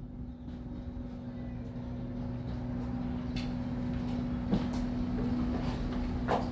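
Outdoor street ambience: a steady low rumble with a constant hum, fading up over the first second, with a few sharp clicks in the second half.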